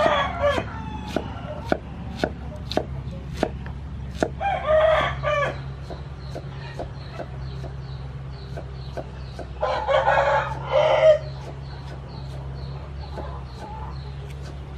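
Steel cleaver chopping pineapple on a wooden chopping board in a steady rhythm of about two chops a second. A rooster crows as the chopping starts, again about four seconds in, and loudest about ten seconds in.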